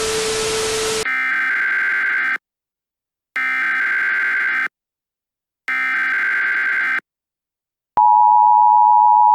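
Emergency Alert System tones. About a second of static hiss with a steady low tone comes first, then three short SAME header data bursts about a second apart. The steady two-tone EAS attention signal begins about eight seconds in.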